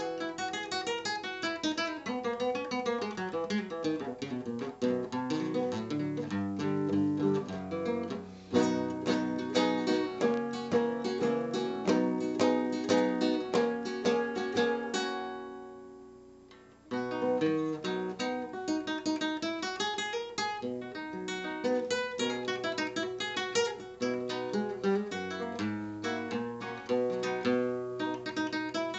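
Solo flamenco guitar playing a colombiana, a plucked melody over chords. About halfway through the playing stops and the last sound rings out and fades for a moment, then it picks up again.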